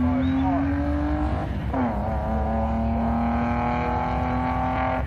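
BMW E36 325i's 2.5-litre straight-six through a custom 3-inch mandrel-bent exhaust under hard acceleration: the engine note climbs steadily, breaks and drops at a gear change about a second and a half in, then climbs again.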